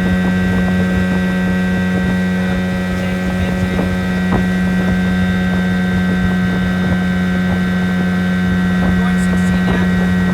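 1980 Evinrude 15 two-stroke outboard motor running steadily under way, one even engine tone that holds without change, with a little wind on the microphone.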